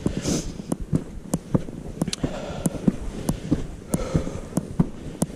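Footsteps of a hiker walking on a rocky trail: a string of short, uneven thumps, roughly two a second.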